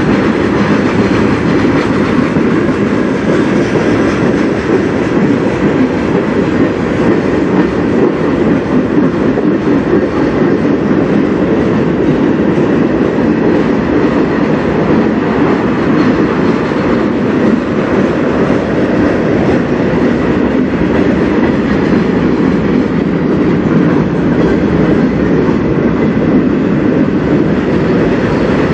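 Freight cars of a manifest train rolling past: a loud, steady rumble of steel wheels on the rails.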